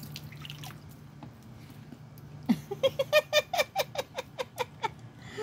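A person laughing: a quick run of about a dozen short, pitched "ha"s starting about halfway through, after a couple of quiet seconds.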